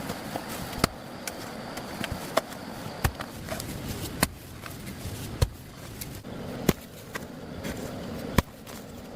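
Sharp strikes on wood, seven loud ones about one to one and a half seconds apart with lighter taps between, over a steady hiss.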